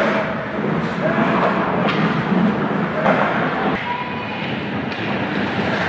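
Ice hockey rink noise during play: a steady scraping hiss of skates on ice, broken by sharp knocks of sticks and puck about once a second.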